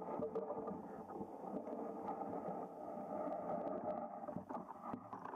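Muffled underwater noise picked up through an underwater camera's housing: a steady murky rumble with a few scattered clicks.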